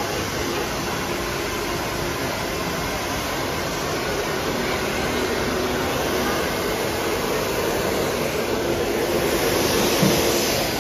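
Handheld hair dryer running steadily, a rush of blown air with a faint motor hum; the rush grows louder and brighter near the end.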